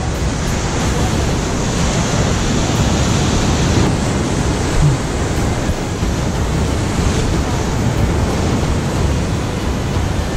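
Ocean surf breaking and washing over a rock ledge, a steady, loud rush of water, with wind rumbling on the microphone.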